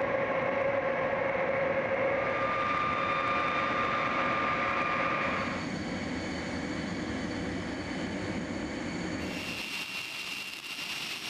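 Jet aircraft running on the flight line: a steady whine over a rush of engine noise. The sound changes abruptly twice, about halfway through and again near the end.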